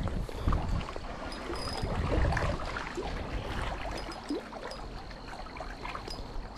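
Water splashing and trickling, with a low rumble in the first couple of seconds.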